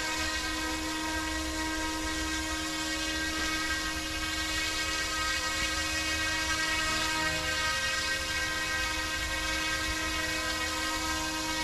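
F09-S UH-60 Black Hawk scale RC helicopter hovering: its electric motor and rotors make a steady high whine that holds one pitch throughout.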